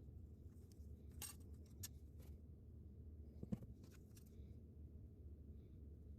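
Near silence: a low room hum with a handful of faint, sharp clicks and light taps of small parts being handled, the clearest about three and a half seconds in.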